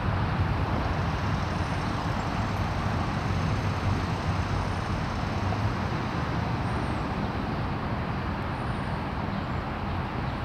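Steady hum of distant city traffic: an even, low rumble with no distinct events.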